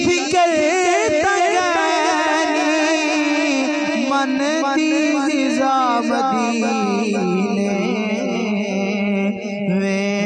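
A man singing a naat into a microphone: a long, ornamented melodic passage with sliding, curling pitch and no clear words, with a short break for breath near the end.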